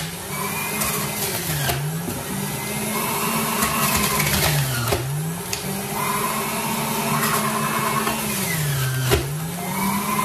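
Philips electric juicer's motor running, its hum sagging in pitch three times and recovering as carrot and orange pieces are pressed down the feed chute and load it. Sharp knocks of the plastic pusher at the dips, the loudest near the end.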